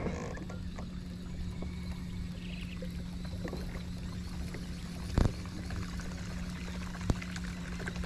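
Water splashing and dripping around a kayak on the water, under a steady low hum. Two sharp knocks, one about five seconds in and a smaller one near the end.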